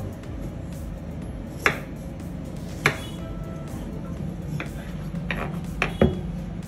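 A knife cutting into frozen fruit-shaped kulfi and knocking on a wooden chopping board: about six sharp clicks and taps spread out, the loudest near the end, over a steady low hum.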